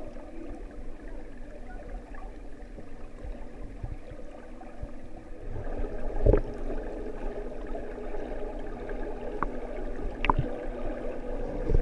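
Muffled water churning and gurgling as people run in deep water, arms and legs driving through it. There is a louder knock about six seconds in and a short click near the end.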